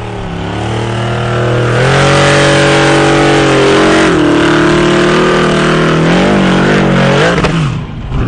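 Off-road vehicle engine revving hard and held at high revs. The pitch wavers up and down, then drops off sharply near the end before climbing again.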